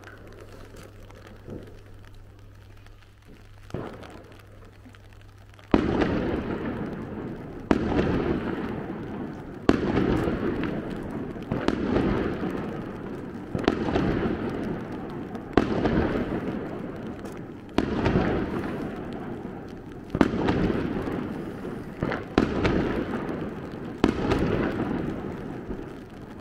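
Aerial firework shells bursting. A couple of faint pops come in the first few seconds, then loud bangs follow about every two seconds, each trailing off over a second or more.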